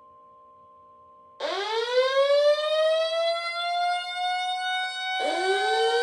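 Outdoor civil defense warning sirens winding up. One starts about a second and a half in, rising in pitch and settling into a steady wail. A second siren starts rising about five seconds in while the first keeps sounding.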